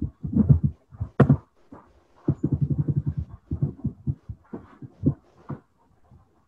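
Computer keyboard typing and clicks picked up close by the microphone: a string of short low thumps and knocks, with one sharper click about a second in and a quick run of taps a little past two seconds.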